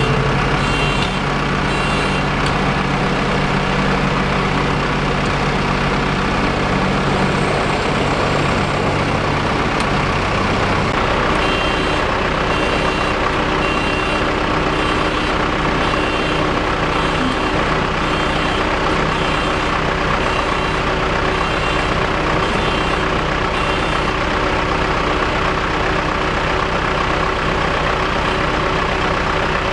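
Combine harvester's engine and machinery running steadily, with short high beeps repeating about once a second through the middle.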